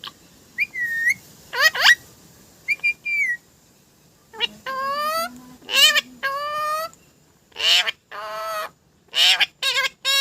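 A bird whistling and calling: a few short high whistles and quick sweeping calls, then a run of louder squawking calls over the second half, each shorter than a second.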